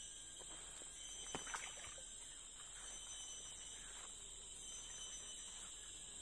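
Steady high-pitched trilling of insects, with a few faint clicks and rustles about a second and a half in.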